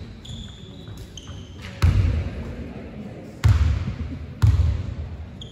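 A basketball bounced three times on the sports hall's wooden floor, each bounce a sharp thud with a reverberant tail in the hall, the second and third about a second apart: a shooter's dribbles before a free throw.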